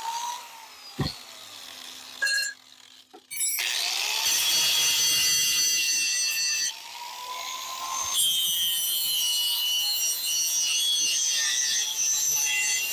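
Ryobi angle grinder spinning down at the start, then starting up again after about three seconds and grinding metal with a shower of sparks. The grinding eases off briefly partway through and then resumes.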